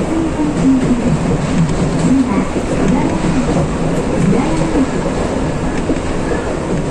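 Electric train running along the track, heard from inside the driver's cab: a steady rumble of wheels on rail and running gear.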